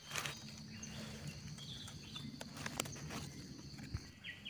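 Soft rustling and a few sharp clicks of hands and a knife working in dry leaf litter, with insects trilling steadily at a high pitch and a faint low hum underneath.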